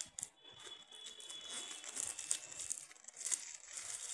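Clear plastic shrink wrap crinkling and tearing as it is pulled off a phone box. It is an irregular run of crackles, loudest from about two to three and a half seconds in.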